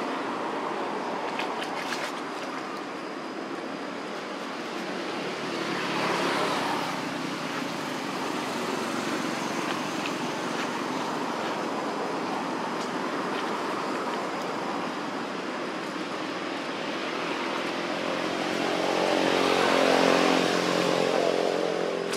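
Motor traffic running steadily in the background, with a vehicle engine swelling about six seconds in and again near the end, where it rises to its loudest and fades as the vehicle passes.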